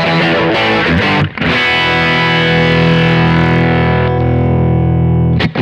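Electric guitar fitted with Häussel TE Broad pickups, played through an amp. A few quick chords, then one chord struck about a second in and left to ring out for several seconds, its brightness fading, broken off near the end by fresh strumming.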